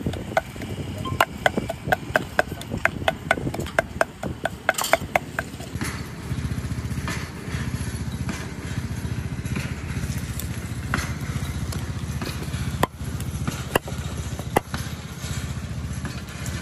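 Cleaver chopping a lemongrass stalk in quick, even strokes, about three to four a second, for the first six seconds. After that a steady low engine hum, like a small motor idling, takes over, with a few single knocks.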